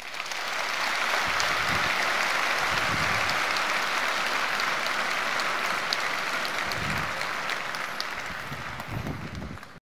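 Large audience applauding: the clapping builds within the first second, holds steady, and cuts off abruptly near the end.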